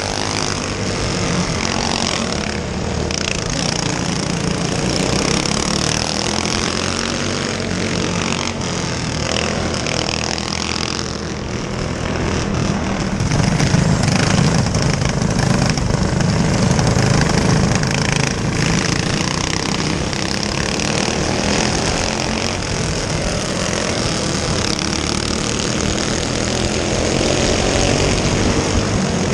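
Small four-stroke go-kart engines running at racing speed. They get louder for a few seconds midway, then settle back.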